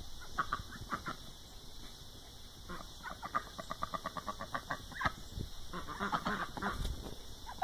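White domestic duck quacking in short bursts, with a fast run of rapid quacks in the middle.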